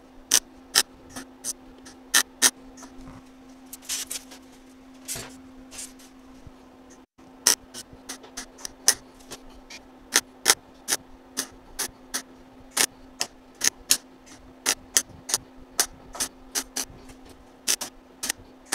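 Lincoln Handy MIG welder laying stitch welds on sheet steel: a quick series of short crackling zaps, about two or three a second, each weld struck and broken off at once, over a steady hum.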